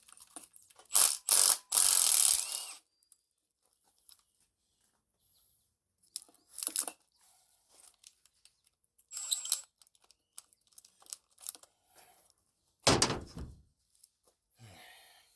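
Intermittent knocks, clatter and rattles of hand tools and engine parts being handled while an engine is stripped down. There is a burst of several loud knocks and rustling in the first few seconds, scattered clicks in the middle, and a single heavy thunk near the end.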